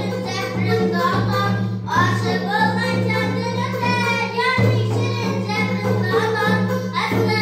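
A young girl singing a song, accompanied by a strummed long-necked lute.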